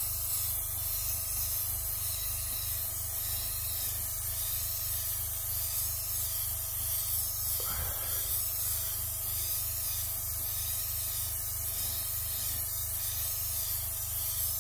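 Tamiya wide-trigger airbrush spraying thinned paint at about 20 psi: a steady hiss of air and paint.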